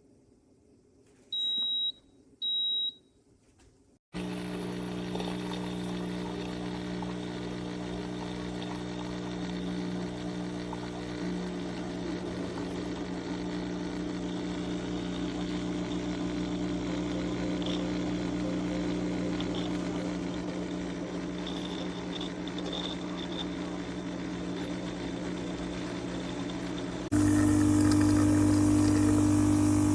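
Two short high beeps from the HiBREW H10A espresso machine's controls, then its water pump starts about four seconds in and runs with a steady hum while pulling a shot. Near the end the hum steps up louder with a deeper, changed tone.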